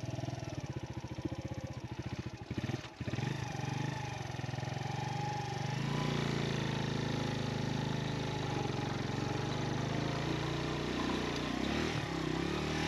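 Motorcycle engine running, with a fine pulsing beat for the first few seconds and a short dip about three seconds in, then a steadier sound.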